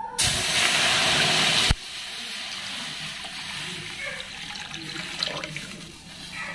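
Water pouring in a stream into a wide metal kadai (wok) and splashing onto the water already in it. It is loud for the first second and a half, then drops suddenly to a quieter steady pour.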